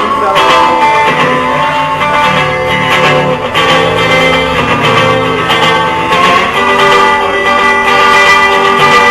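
Live guitar playing an instrumental passage, with sustained notes that shift every second or so.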